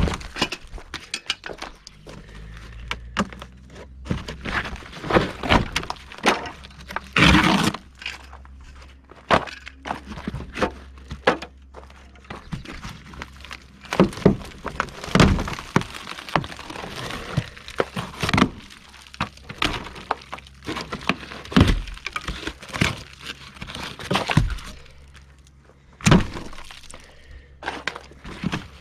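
Demolition noise: material cracking, snapping and breaking apart, with many sharp knocks at irregular intervals and no machine running.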